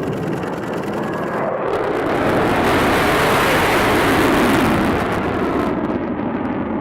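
Jet engine noise of a fighter aircraft passing, swelling to its loudest about three to five seconds in, then easing off as the high hiss drops away.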